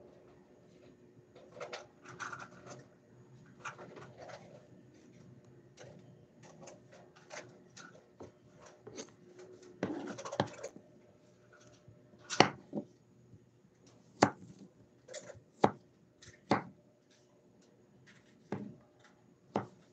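Kitchen knife chopping on a wooden cutting board: sharp, separate knocks at an uneven pace, loudest in the second half. Before that, soft scraping and small clicks of a paring knife peeling garlic cloves.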